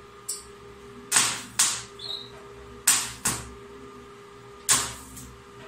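Pedal-operated resistance spot welder making three welds on cage wire, each a sharp snap followed by a second one about half a second later. A steady electrical hum from the machine runs underneath.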